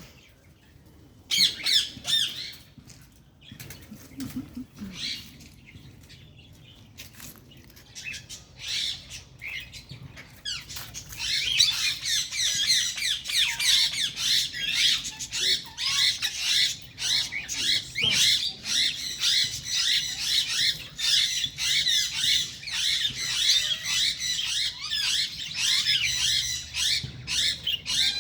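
Many small birds chirping and chattering, scattered calls at first that thicken into a dense, continuous chorus about ten seconds in.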